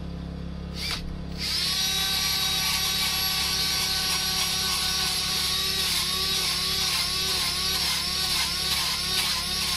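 A hand-held power tool with a yellow wheel starts up about a second and a half in and runs with a steady high whine and hiss, brushing the char off a burnt, carved wood surface. In the second half its pitch wobbles about twice a second as the wheel works the wood.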